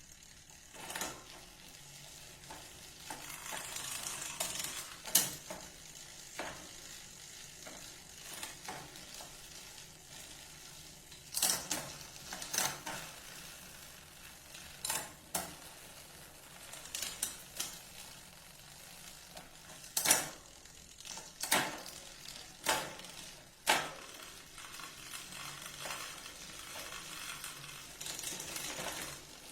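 Bicycle gears being shifted: a steady hiss of the chain running over the sprockets, broken by about a dozen sharp, irregularly spaced clicks as the chain jumps from sprocket to sprocket.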